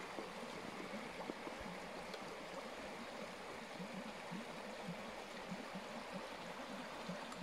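Shallow mountain stream running over stones, a steady wash of water.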